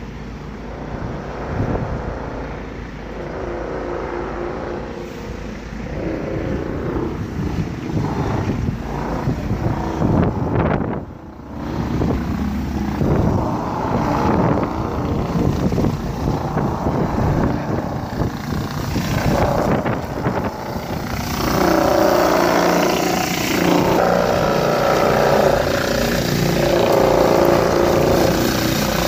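Wind on the microphone over distant traffic, then, after a cut about a third of the way in, a hot-water pressure washer spraying paving slabs: a steady hissing drone. About two-thirds in it gets louder as a rotary surface cleaner spins over the slabs.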